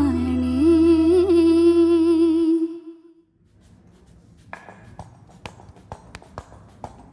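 A woman's voice holds the final note of a Tamil song over a sustained keyboard chord and bass, wavering slightly partway through, and the music stops about three seconds in. After that there is only faint background noise with scattered small clicks.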